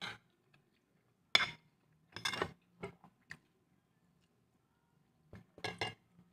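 Metal spoon clinking and scraping against a plate: a few short separate knocks, the loudest about a second and a half in, and a quick pair near the end.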